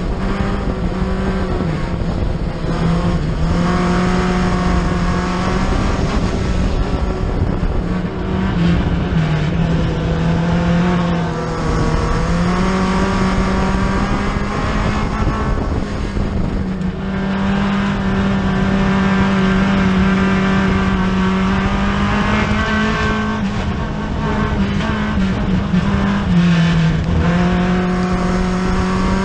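Four-cylinder dirt-track race car's engine heard from inside the cockpit, running hard the whole time. Its pitch dips briefly and climbs again several times as the driver lifts and gets back on the throttle.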